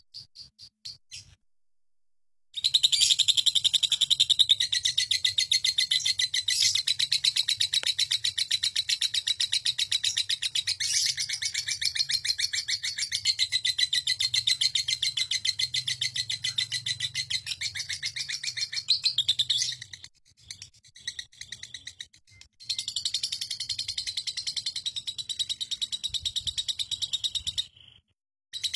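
Lovebird singing its long 'ngekek' chatter: a fast, unbroken run of high, shrill repeated notes. It pauses briefly near the start and again about twenty seconds in, with a few scattered notes in the second break, then picks up again.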